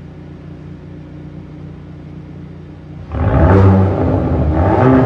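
Hyundai i30N Performance's 2.0-litre turbocharged four-cylinder with its stock exhaust, humming low and steady, then revved sharply about three seconds in and held at a loud, rising and falling engine speed.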